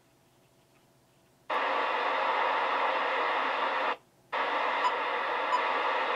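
Icom IC-R7100 receiver's audio as the squelch opens about a second and a half in, letting through a steady hiss of FM receiver noise; the hiss cuts out for a moment near four seconds, then resumes.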